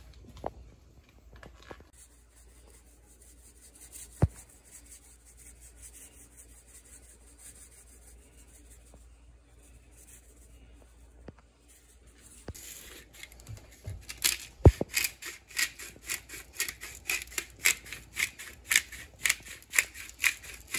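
A few faint taps and clicks, then a spice shaker jar shaken over a baking sheet in quick repeated rattles, about three a second.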